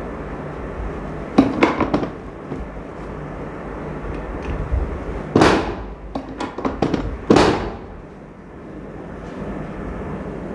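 Sharp cracks and thuds from a chiropractic adjustment. There is a quick cluster of cracks about a second and a half in, then two loud cracks several seconds later with rapid clicks between them, over a steady low hum.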